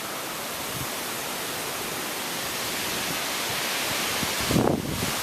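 Strong storm wind rushing steadily and building slightly, with a brief low buffet near the end.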